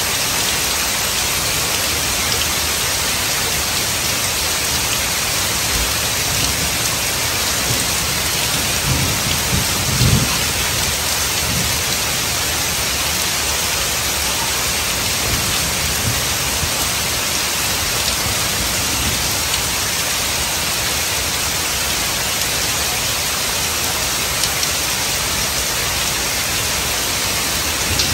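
Heavy rain falling steadily on pavement, cars and foliage, with one low rumble of thunder swelling and fading about a third of the way in.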